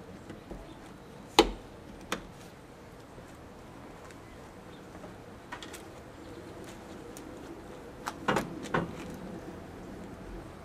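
Sharp knocks and clunks of gear being handled on a pickup cap's roof rack: one loud knock about a second and a half in, a smaller one just after, and a quick run of several around eight seconds in, over a faint steady background.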